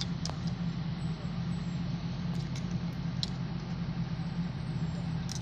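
A large engine running steadily at a low, even idle, with a few light metallic clicks and taps on top.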